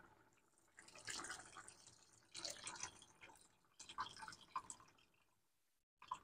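Faint drips and small splashes of tamarind water poured from a steel saucepan into a pot of simmering sambar, coming in a few scattered spatters.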